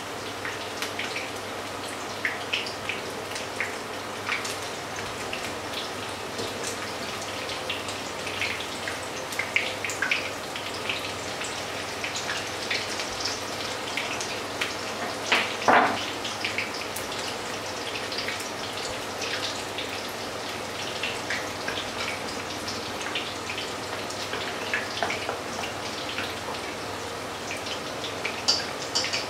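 Potato fritters frying in hot oil in a pan: steady sizzling with many scattered crackles and pops. One brief, louder noise about sixteen seconds in.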